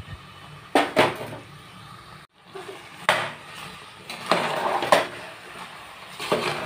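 A spoon scraping and knocking against the metal pressure cooker as grated jaggery is stirred into cooked rice, with several sharp clinks. The sound cuts out briefly about a third of the way in.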